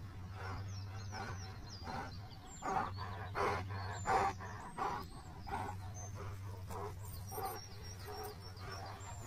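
Dogs, a boerboel puppy and a kuvasz, giving short play barks and growls in irregular bursts, loudest in the middle, with birds chirping in the background.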